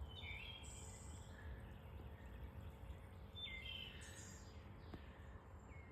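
Birds singing faintly in the dawn chorus: a few short, high chirped phrases, over a faint low rumble.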